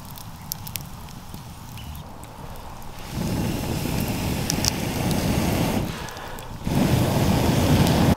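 Wood campfire crackling with sharp pops, then air blown hard through a metal blow-poker tube into the embers to revive the fire: two long rushes of air, separated by a short pause for breath, with the second louder. It stops suddenly at the end.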